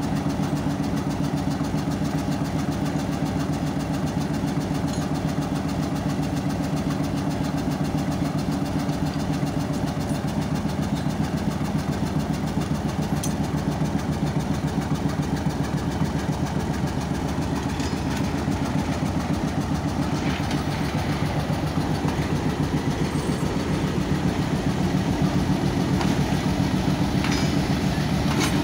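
Diesel engine of a Pakistan Railways HBU-20 locomotive idling steadily with a fast pulsing beat while the locomotive is turned on a turntable, with a few faint clicks and a slight rise in engine level near the end.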